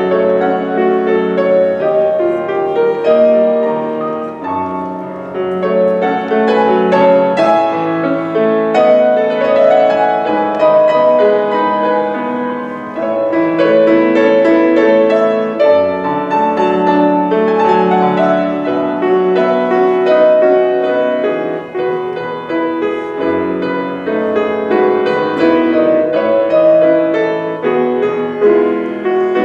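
Solo grand piano played continuously, a flowing passage of many notes in quick succession.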